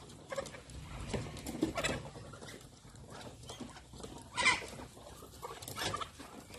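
A flock of chickens, Muscovy ducks and their chicks and ducklings feeding at a feed pan: scattered short taps and small bird calls, with one louder sound about four and a half seconds in.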